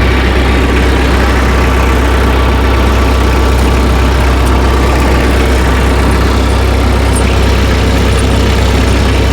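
Tractor engine running steadily at idle, a loud, even low hum.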